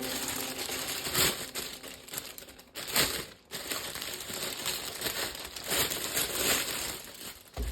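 Packaging crinkling and rustling as a toy gun set is unpacked by hand, in irregular handling noises with a few louder crinkles.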